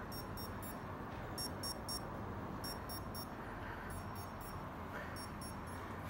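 An electronic alarm beeping in quick triplets: three short high-pitched beeps about every second and a quarter, over a faint steady hiss.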